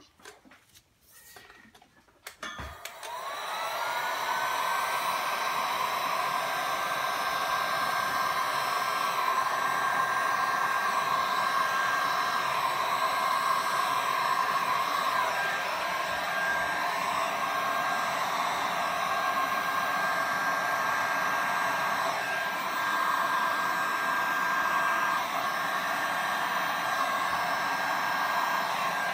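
Heat gun switched on after a few faint clicks, its fan whine rising in pitch for a second or two as it spins up, then running with a steady whir and rush of air as it blows over wet resin.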